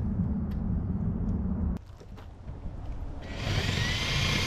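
A low rumble that drops away suddenly about two seconds in. About three seconds in, a steady motor drone with a high whine and hiss sets in and holds.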